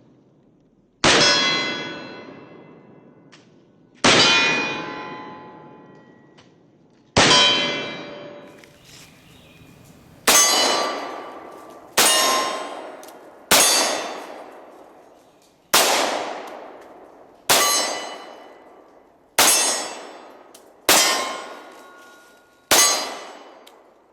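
Eleven .45 ACP shots from a Glock 30 pistol, each followed by the long metallic ring of a hit steel target. The first three come about three seconds apart, the rest quicker, about every one and a half to two seconds.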